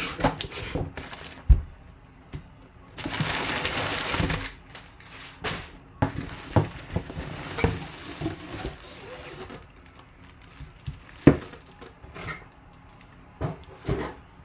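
A cardboard box being handled and opened, and a helmet in a cloth drawstring bag lifted out and set down on a table: scattered knocks and thumps, with a louder stretch of rustling about three seconds in.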